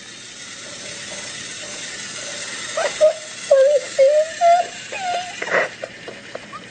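Battery-powered toy train running with a steady whirr. About three seconds in, a young child's wordless squeals and babble come in over it, ending a little before the end.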